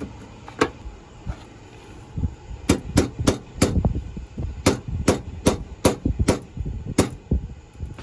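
Hammer tapping a quick-release bumper fastener against the bumper's plastic edge, denting it to mark where the hole is to be drilled. About a dozen sharp taps: one near the start, then a quick run at roughly three a second.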